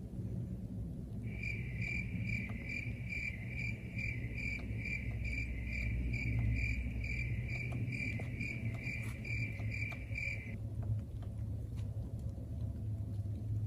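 A high, steady pulsing tone, about two pulses a second, starts about a second in and cuts off abruptly about ten seconds in, over a low steady rumble.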